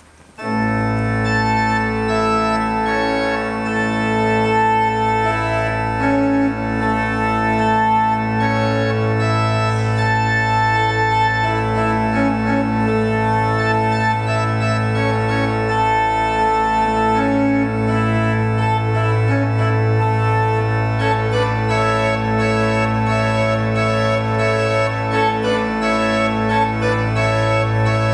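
An organ playing a verset: sustained chords on the manuals over a held low pedal bass note. The music begins about half a second in, and the bass note breaks off briefly near the end before returning.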